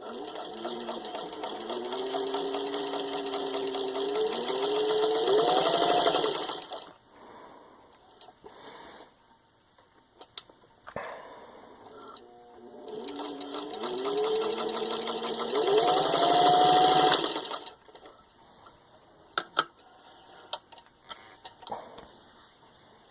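1936 Singer 15-91 sewing machine, with its gear-driven potted motor, stitching through six layers of denim. It runs twice, for about six and then five seconds, each time speeding up with a rising whine before stopping. A few sharp clicks come between and after the runs.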